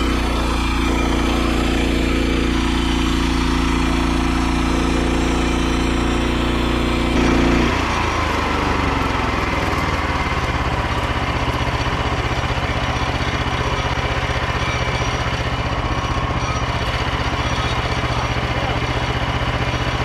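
Petrol engine of a Frontier OS27 portable bandsaw mill running steadily while the blade cuts through a log. About eight seconds in the engine note changes abruptly and settles into a lower, steadier running.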